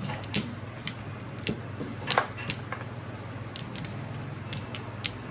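Mahjong tiles clicking against the table and each other: about ten sharp, irregular clicks, the loudest a little past two seconds in, over a steady low hum.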